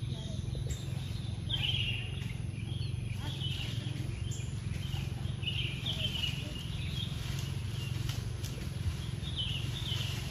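Birds chirping in short repeated phrases every second or two, over a steady low rumble.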